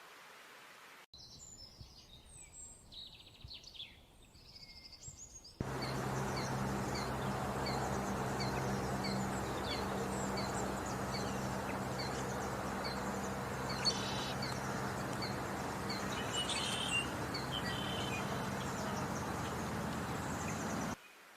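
Wild birds chirping and calling. About five seconds in, a steady rushing noise with a low hum cuts in, and one bird repeats a short high call at a little more than once a second. Shortly before the end the rushing noise cuts off suddenly.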